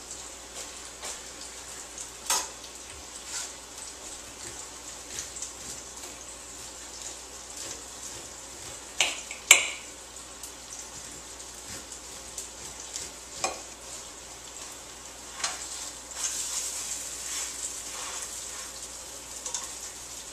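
Fish frying in olive oil in a pan, a steady sizzle, with a few sharp clicks and knocks of a knife and dishes. The sizzle grows louder about three-quarters of the way through.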